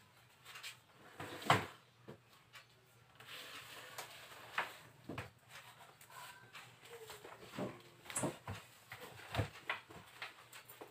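Irregular knocks, taps and clicks of people moving about and handling things in a small room, with one sharp knock about a second and a half in.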